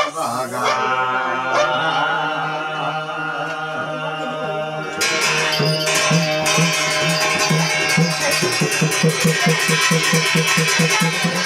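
Jagar devotional music: a man singing over a small hand drum and a brass plate (thali) beaten with a stick. About five seconds in, the beating grows louder and settles into a quick, steady rhythm.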